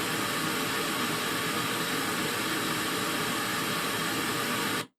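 Steady, even hiss at a constant level, cutting off abruptly near the end into silence.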